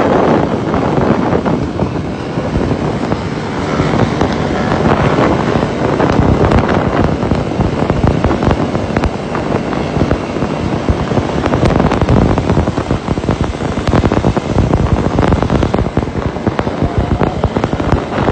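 Motorcycle engines running at road speed with a dense crackle, mixed with heavy wind noise on the microphone.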